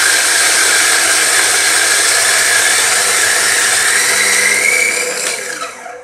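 Latina 600N (Feima 600N) electric flat-burr coffee grinder grinding 20 g of coffee beans at setting 3.5: a loud, steady whir with a whine that rises slightly in pitch near the end. About five seconds in, the motor is switched off and spins down to a stop.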